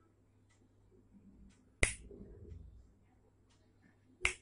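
Two sharp finger snaps about two and a half seconds apart, made as test sounds to trigger a sound-activated relay switch circuit. A low rumble follows the first snap for about a second.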